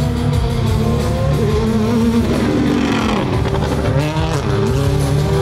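Race car engine revving up and down repeatedly during a drifting demonstration, mixed with loud music.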